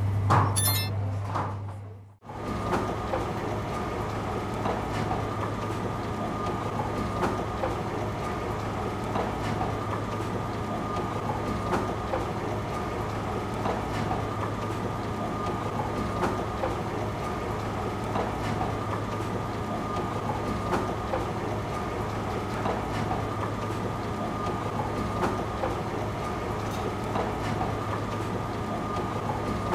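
Bakery machinery running steadily from about two seconds in: a low hum with a thin, steady high whine over a light patter of small clicks.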